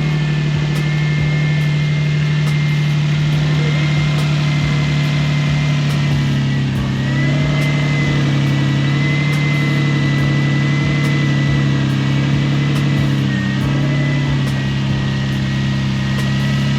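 Turbocharged Nissan 350Z's V6 engine idling, with a steady high whine that the owners put down to the water pump. The idle sags slightly twice.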